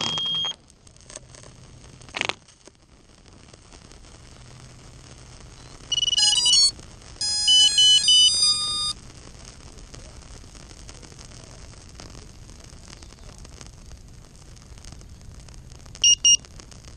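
Electronic beeping from a crashed FPV quadcopter. A brief cluster of tones comes about six seconds in, then a run of beeps at several different pitches lasting about two seconds, then two short high beeps near the end, over a faint steady hum.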